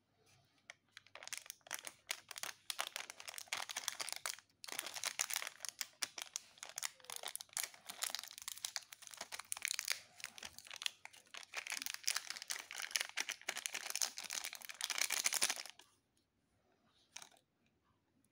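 Metallised foil candy sachet of Aam Tapka mango tablets crinkling and being torn open by hand: a dense crackle of plastic foil with a brief pause about four seconds in, stopping sharply near the end.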